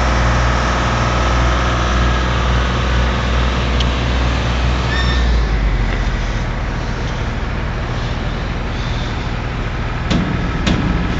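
Heavy diesel engine running steadily with a deep hum, which drops lower about halfway through. A few sharp clicks come near the end.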